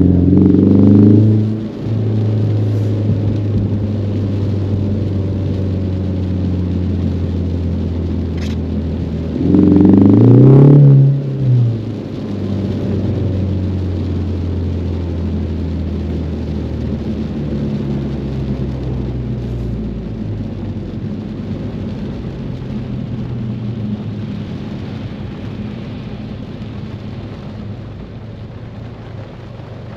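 Ford Mustang engine accelerating hard at the very start and again about ten seconds in, its pitch rising each time, the second surge the loudest. Between and after the surges it holds a steady cruising hum over road noise, which slowly gets quieter toward the end.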